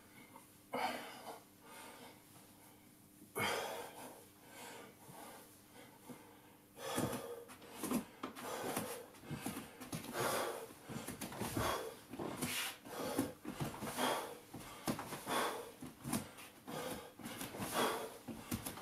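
A man breathing hard from exercise, in and out through nose and mouth. The breaths come singly at first, then quick and close together from about seven seconds in.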